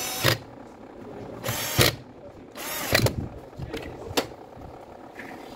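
Three short bursts of a power screwdriver backing out the screws that hold the sanding pad on a Makita BO5030 orbital sander, then a single sharp click.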